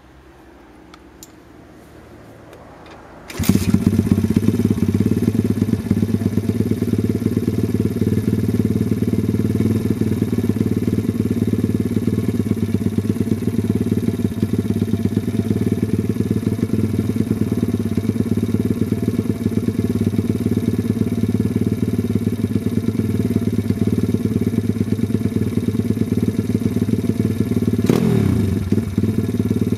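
RacingPitbike S4R pit bike's engine catches and starts suddenly about three seconds in, then idles steadily. Near the end there is a click and a brief change in the engine note.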